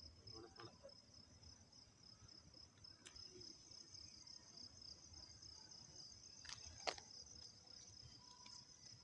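Faint crickets trilling in a steady, finely pulsing high-pitched chorus, with a soft tap about seven seconds in.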